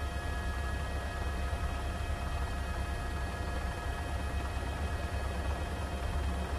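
News helicopter's onboard engine and rotor noise: a steady low rumble with a few faint, steady whining tones above it.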